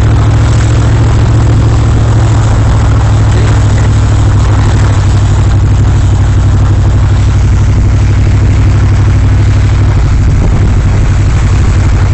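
Truck driving at a steady speed: a loud, steady low engine drone with road and wind noise over it.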